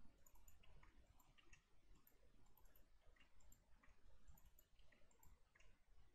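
Faint, irregular clicks of computer keyboard typing and mouse clicks over a low hum of room tone.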